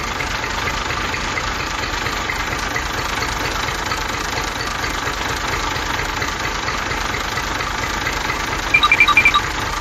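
Battery-powered toy tractor running with a steady mechanical drone. Near the end comes a rapid string of about six short high beeps.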